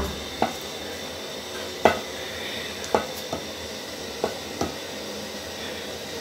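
Wooden cooking stick stirring millet-flour ugali in an aluminium pot, knocking against the pot about six times at uneven intervals over a steady hiss.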